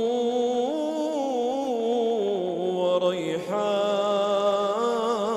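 A man reciting the Quran in melodic tajwid style, holding long ornamented notes that glide up and down in pitch. The phrase breaks briefly about three seconds in, then a new phrase begins.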